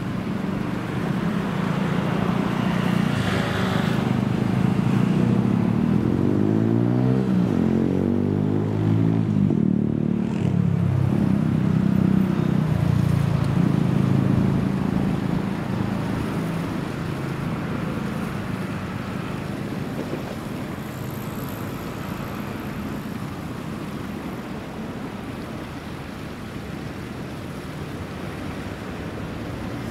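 Road traffic: motor vehicle engines running close by, with a vehicle passing about eight seconds in. The traffic noise then slowly dies down.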